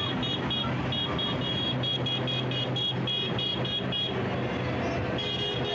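Diesel engines of large farm machinery, a forage harvester and a tractor, running steadily as they pass close by. Over them, a high-pitched electronic beeping repeats about three times a second, stopping for about a second near four seconds in before starting again.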